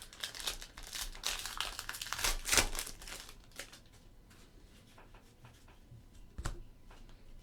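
A trading-card pack wrapper being torn open and crinkled for about three seconds, then the cards handled with fainter light clicks and one sharper tap near the end.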